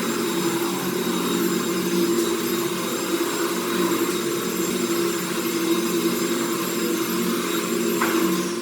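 An electric power tool's motor running steadily with a constant whine over a hiss.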